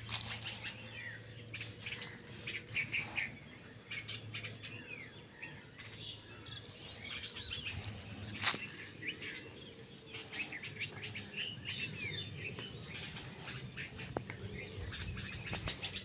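Small birds chirping, many short overlapping calls all through, over a faint steady low hum, with one sharp click about eight and a half seconds in.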